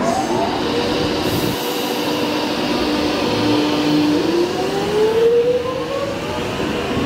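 Electric suburban train pulling away from the platform, its traction motors whining over the rumble of the wheels: a steady tone that starts to climb in pitch a little after four seconds as the train accelerates, with fainter higher tones rising alongside.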